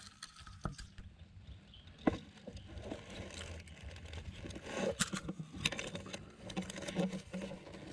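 Faint rustling in dry grass and loose soil, with a few light ticks and taps scattered through it.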